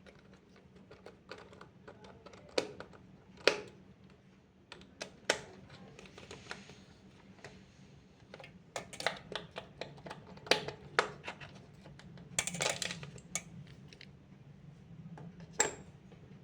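Irregular clicks and taps of small hardware being handled while opening a PC's M.2 SSD slots, with a short scraping rustle about twelve and a half seconds in.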